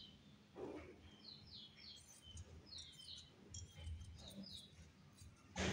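Small birds chirping in short, falling notes, several times over, with faint low sounds of scissors cutting through cotton fabric about the middle.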